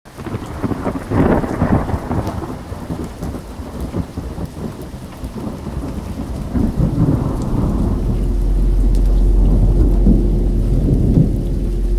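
Rolling thunder with rain, the sound of a thunderstorm. About seven or eight seconds in, a steady low drone with a held higher tone comes in underneath it.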